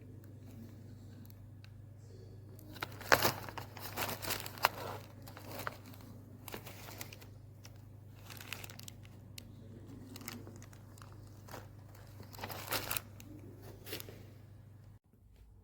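Crinkling and rustling handling noises in several bursts, loudest about three to five seconds in and again near the end, over a steady low hum that cuts out shortly before the end.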